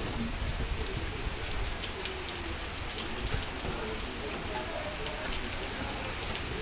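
Hurricane rain falling steadily and hard, with many separate drop hits heard through the constant wash.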